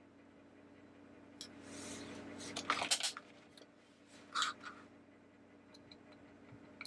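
Light clicks and scrapes of a small screwdriver tip and fingers working on the plastic gearbox of an animated Mr. Christmas teacup, probing the worm gear for a crack. The loudest clicks come in a short cluster about three seconds in, with another small one about four and a half seconds in.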